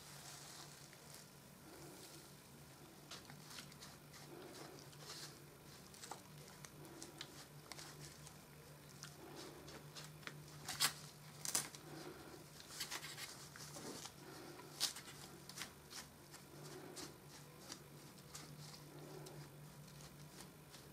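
Metal spoon stirring a light mix of peat and polystyrene foam beads in a plastic bowl: soft scratchy rustling with a few sharp clicks of the spoon on the bowl, the loudest about halfway through. A faint steady low hum runs underneath.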